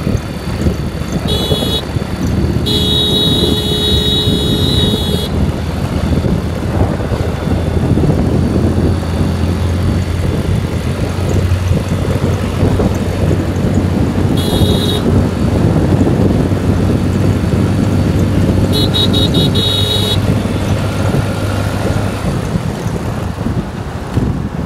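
Motorcycle engine running steadily at road speed, with wind rushing over the microphone. A horn beeps several times over it: once briefly, once held for about two seconds, once more, and then a quick run of short beeps near the end.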